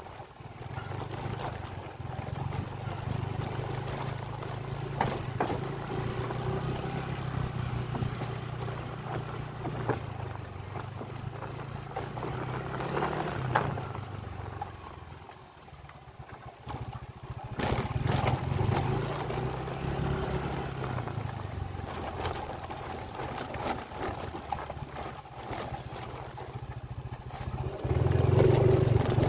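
Small motorcycle engine running as it rides along, its note rising and falling with the throttle and easing off for a few seconds in the middle. A few sharp knocks come around the middle.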